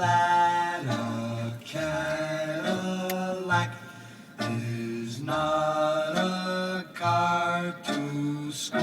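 Unaccompanied singing voice holding a run of notes, each sustained for about half a second to a second with short gaps between them.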